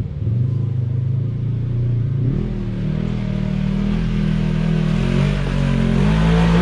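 Engines of an ATV and a side-by-side UTV working at low throttle as they crawl over rock ledges. The engine note steps up and down with the throttle and grows louder about two seconds in.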